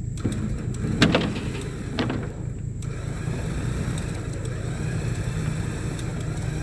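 Equipment engine running steadily at idle, with a loud clank about a second in and a lighter one a second later, each ringing briefly.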